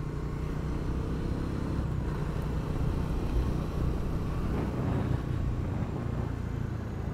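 Bajaj Dominar 250's single-cylinder engine running steadily at an easy cruise, with wind and road noise from riding.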